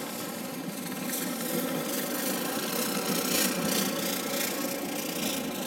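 Sapporo streetcar snow-plow tram running along the tracks, its rotating brooms sweeping and throwing snow, a dense mechanical rushing and rumbling. It grows louder as the car passes close, loudest about three and a half seconds in, then fades slightly.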